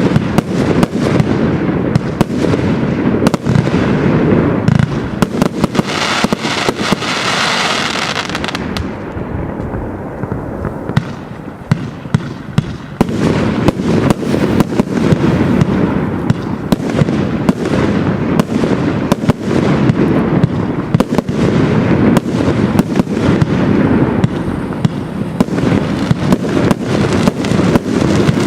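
Compound firework cake firing a continuous barrage of rapid shots and bursting bangs, with a spell of hiss about six to eight seconds in.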